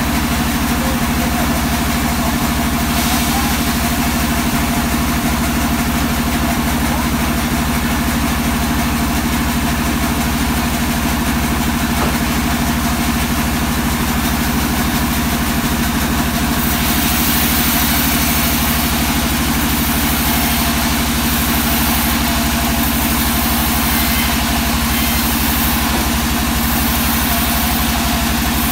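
Band sawmill running steadily while its blade cuts lengthwise through a hard teak slab, a constant machine hum under the hiss of the cut. The cutting hiss gets louder about three seconds in and again a little past halfway.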